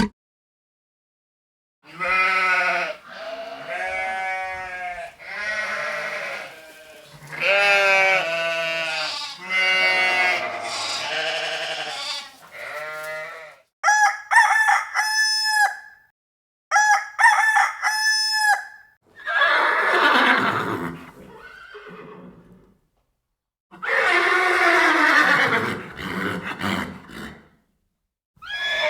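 A series of different animal calls played one after another, each lasting a few seconds with short gaps between. Near the middle comes a group of short, high-pitched calls repeated several times.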